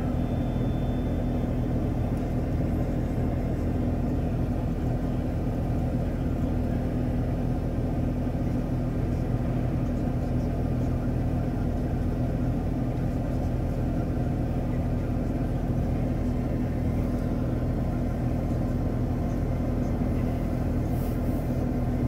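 Steady low engine rumble with a constant hum.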